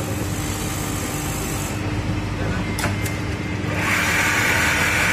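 Richpeace automatic single-head template sewing machine running and stitching, with a steady dense mechanical rumble as the head travels along the template. Two short clicks come about halfway through, and a louder hiss rises about four seconds in and lasts over a second.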